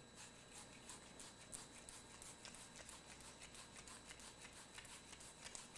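Faint, rhythmic scratching of a fitting brush scrubbing the inside of a copper tee, about four strokes a second. It is cleaning oils and debris from the fitting's hub before flux is applied for soldering.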